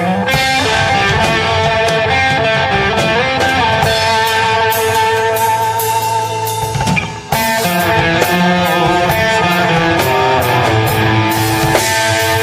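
Rock band playing live, led by sustained, bending electric guitar lines over bass and drums, with a brief drop in the music about seven seconds in.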